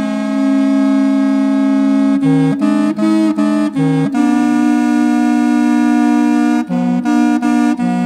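A reconstructed Roman tibia (aulos), a pair of brass-covered blackwood reed pipes copied from ones excavated at Pompeii, played together in two parts. Long held notes alternate with runs of short, quick notes about two seconds in and again near the end.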